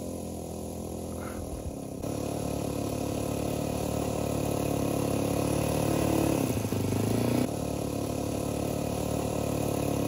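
Engine of a radio-controlled Gipsy Moth model plane running steadily. It gets louder about two seconds in and drops back a little after about seven and a half seconds.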